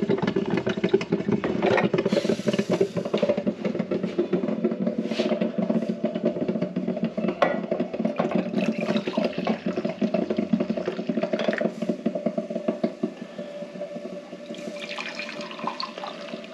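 Hot coffee pouring in a steady stream from a glass drip-coffee-maker carafe into ceramic mugs, with a few short knocks along the way.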